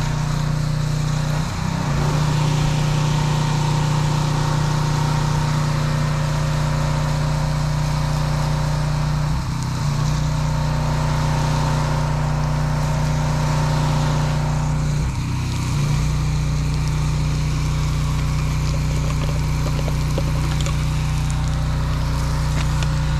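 Pressure washer engine running steadily, its hum dipping and changing briefly three times, over the hiss of water spraying from a hose.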